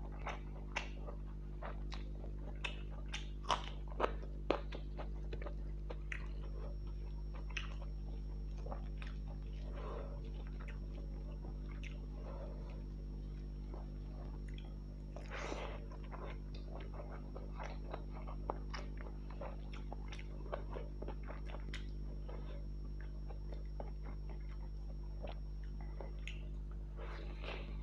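A person eating fish curry with rice close to the microphone: chewing with short wet clicks and smacks, a cluster of sharper ones about four seconds in. Under it runs a steady low hum.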